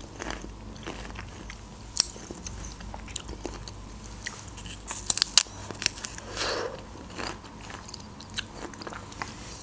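Biting and chewing peeled pomegranate arils, with irregular sharp crunches and clicks as the seeds burst, a few louder ones about two and five seconds in.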